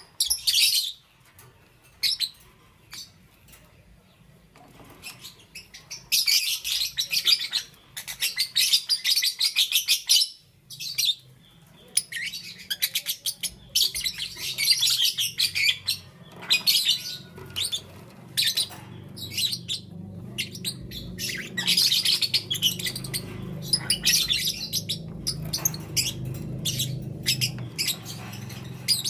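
Lovebirds chirping: dense runs of rapid, high-pitched chirps lasting a few seconds each, with short pauses between. A low steady hum sits underneath in the second half.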